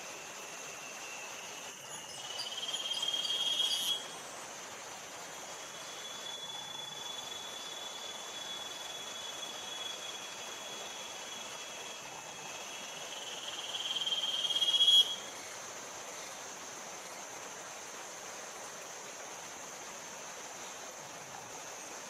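Rainforest insect chorus: a steady high-pitched hum of insects, with a louder insect call that swells over about two seconds and then cuts off sharply, twice.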